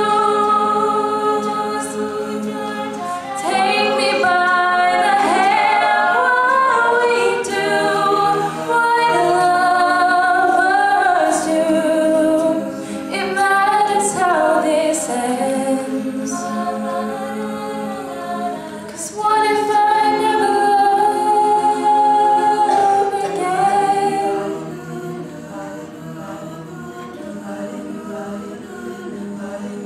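All-female a cappella group singing in close vocal harmony, with no instruments, getting noticeably softer about 24 seconds in.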